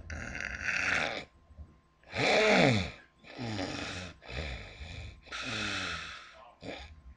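A woman snoring heavily: a run of about six raspy snoring breaths in quick succession, several with a pitch that slides up and down, the loudest about two seconds in.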